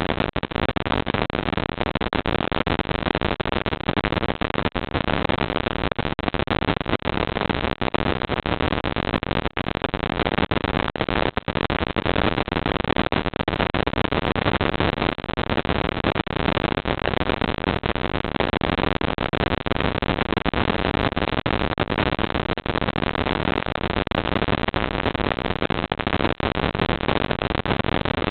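Steady, loud hiss from a security camera's built-in microphone, with a few brief dropouts.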